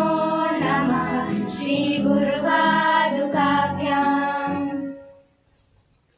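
Group of children singing in unison with electronic keyboard accompaniment, holding long notes; the song ends about five seconds in.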